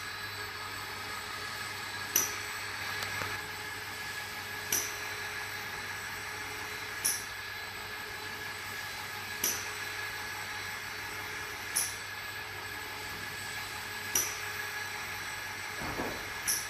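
Gottschild HBS 2500 automatic polishing machine running, its spindle motor spinning a buffing pad over a high-gloss lacquered panel: a steady whine and hum. A short, sharp click comes about every two and a half seconds, seven times in all.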